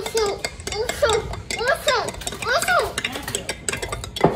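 A spoon stirring chocolate milk in a glass cup, clinking quickly and repeatedly against the glass. Two rising-and-falling pitched tones sound near the middle, and a sharper knock comes just before the end.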